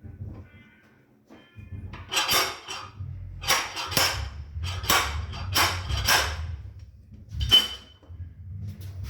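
Metal tool striking the sheet steel of a dented car fender: about seven sharp, ringing metallic clanks at irregular intervals, starting about two seconds in, the last one ringing with a clear tone.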